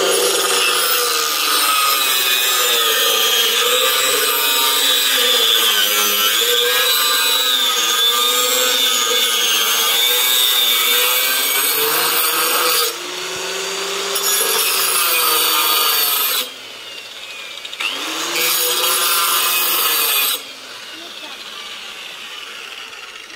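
Handheld electric circular saw cutting a wooden formwork board, the motor's pitch dipping and recovering as the blade takes load. One long cut of about thirteen seconds, then two shorter runs, after which it is quieter for the last few seconds.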